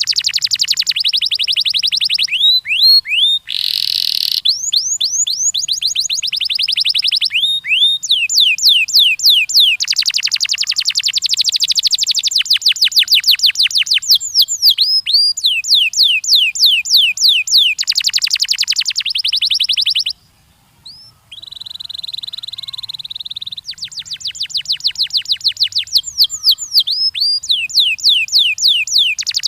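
Domestic canary singing: fast trills of repeated down-swept chirps, switching to a new trill every few seconds, with a couple of harsher buzzy phrases. The song breaks off for about a second two-thirds of the way through, then resumes.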